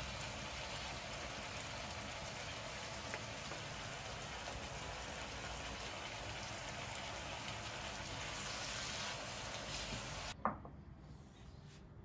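Chopped red pepper and sucuk sizzling steadily in a frying pan. About ten seconds in the sizzle cuts off abruptly with a single knock, leaving a much quieter background with a few light ticks.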